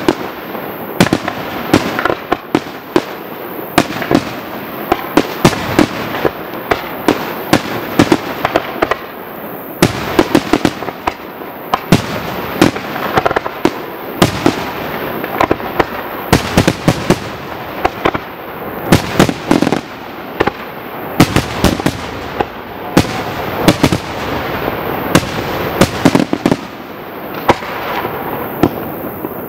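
Aerial firework shells bursting in a continuous barrage: sharp bangs about every second, over a steady dense crackle.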